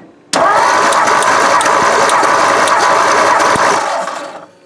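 A 1960 Edsel Ranger's six-cylinder engine cranked over by its starter motor without firing, during a compression test on cylinder number two. It starts abruptly, cranks steadily for about four seconds, then stops.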